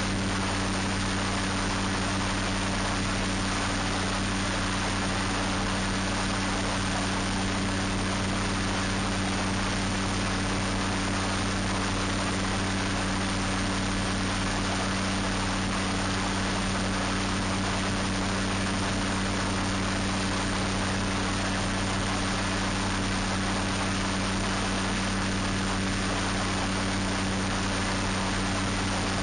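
Ultralight aircraft's engine and propeller running at steady cruise power in flight, an unchanging drone with a constant hiss over it.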